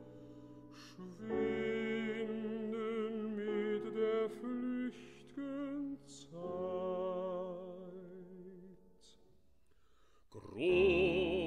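Art song for baritone and piano: soft sung phrases over sustained piano chords that fade almost to nothing about nine seconds in. Near the end the baritone voice comes back in loudly with a wide vibrato.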